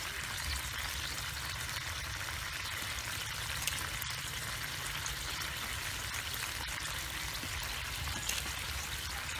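Saucy mixture sizzling in a wok over a fire, a steady hiss over a low rumble, with one light click about four seconds in.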